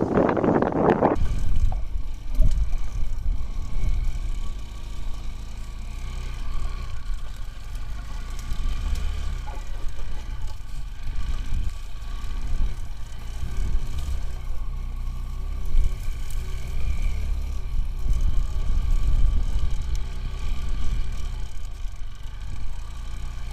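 Motorcycle engine running at a fairly steady speed, with a deep rumble and small rises and falls in level. A short burst of noise comes in the first second before the engine sound settles.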